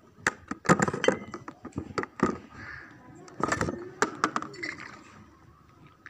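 A quick run of sharp knocks and clinks, as of hard objects being handled and set down, loudest about a second in and again at three and a half seconds, with a few brief low voice sounds between them.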